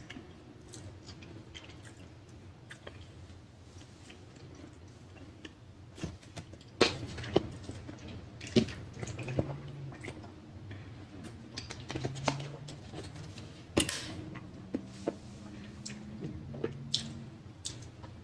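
Chewing with wet mouth smacks and clicks, irregular, with a handful of louder sharp smacks in the middle.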